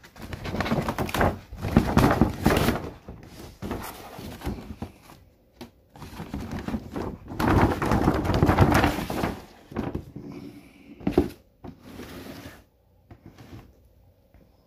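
Paper shopping bag rustling and crinkling in two long bursts as a shoebox is pulled out of it, with a short knock near the end.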